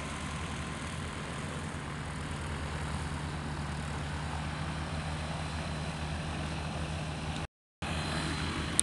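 Light aircraft piston engines running steadily as the planes taxi on a grass airfield, with a low, even propeller hum. The sound cuts out for a moment about seven and a half seconds in.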